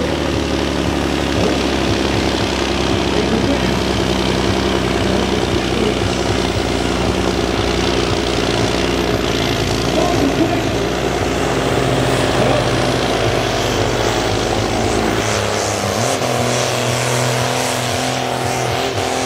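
Big diesel engine of a pulling truck running hard under load, dragging a weight sled, with a deep steady note. About fifteen seconds in, the deepest part of the sound drops away and the engine carries on at a lighter note.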